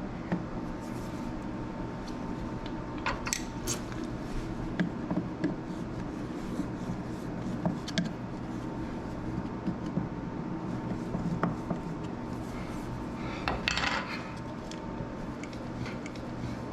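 Scattered small clicks and rubbing as an electrical outlet and its hardware are handled and fitted back into the wall box, with a longer scrape near the end, over a steady low hum.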